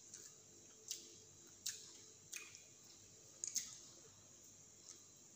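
Faint close-up eating sounds from chewing a fried snack: a handful of short, sharp clicks about a second apart, each dying away quickly.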